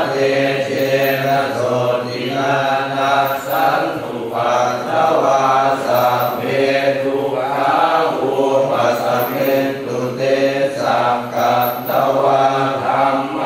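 Thai Buddhist chanting in Pali, a continuous recitation in steady, repeating phrases on a near-level pitch.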